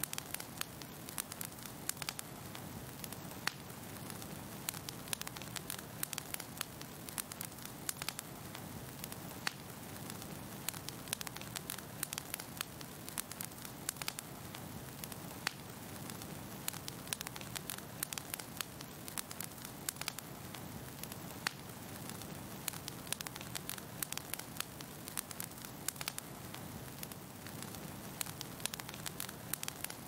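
Wood fire crackling: many small pops and snaps at uneven intervals over a steady low rush of burning logs.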